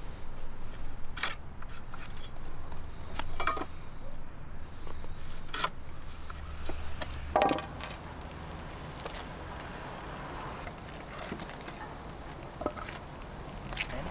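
Scattered knocks and clatters of 2x4 lumber and tools being handled and set down on asphalt, the loudest about seven seconds in, over a low steady rumble.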